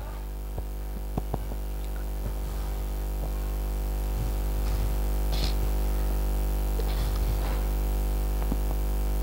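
Steady electrical hum and buzz from a sound system, slowly growing louder, with a few faint clicks and brief faint voices under it.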